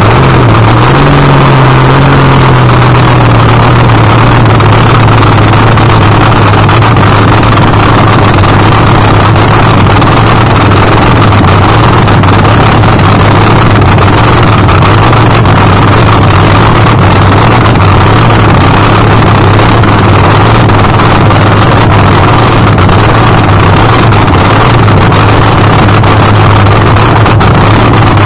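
Supercharged nitromethane V8 of an AA/FD slingshot dragster idling just after fire-up through open zoomie headers, very loud and steady. Its idle settles slightly lower in pitch in the first couple of seconds, then holds.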